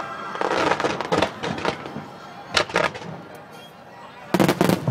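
Fireworks launching and bursting in bunches of sharp bangs and crackles, with a quieter gap in the middle and a dense volley of bangs near the end.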